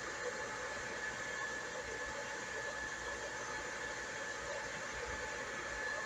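Hair dryer running steadily: a constant rush of blown air with a thin, steady whine from its motor and fan.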